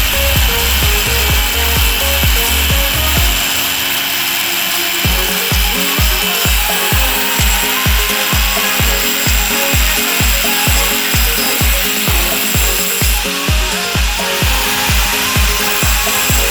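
A grinder grinding steel to throw sparks for a spark test, a steady rasping hiss. Under it runs background music with an even bass beat that drops out briefly about three and a half seconds in.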